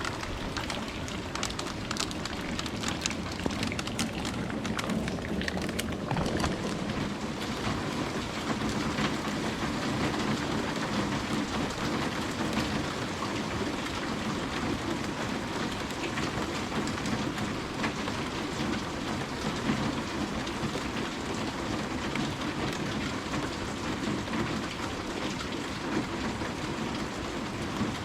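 Steady rain falling, with many sharp ticks of individual drops hitting a surface, most distinct in the first six seconds or so.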